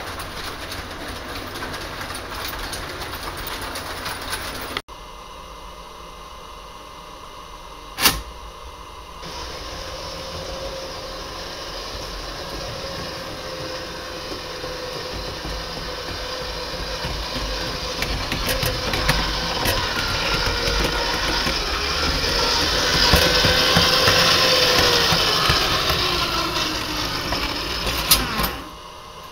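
Gauge 0 tinplate model train running on metal track, its rattle and motor whir growing steadily louder as it approaches. Near the end the whir drops in pitch, a click follows, and the sound cuts off. Before that, a different steady running noise breaks off at an edit about five seconds in, and a single sharp click comes a few seconds later.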